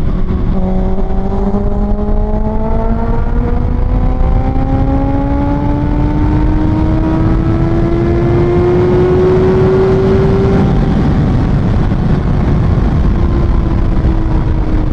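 Kawasaki ZX-6R's 636cc inline-four, breathing through an Austin Racing aftermarket exhaust, pulls under steady throttle, its note climbing slowly for about ten seconds. The note then drops and eases off as the throttle closes or the rider shifts, over a steady rushing noise.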